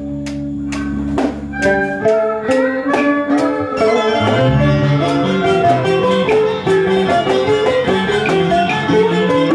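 Vietnamese traditional ensemble music ('hòa đờn'): plucked strings moving through quick runs of notes alongside a bowed string, over a held low note in the first couple of seconds, with sharp clicks marking the beat.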